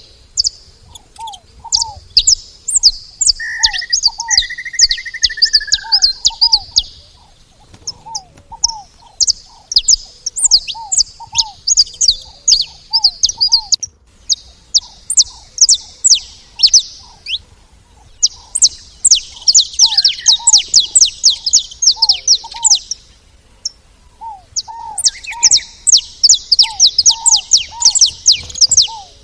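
A group of saffron finches chirping in rapid, busy bursts with short pauses between them. Behind them another bird repeats short, lower downslurred notes, often in pairs, and there is a brief whistle a few seconds in.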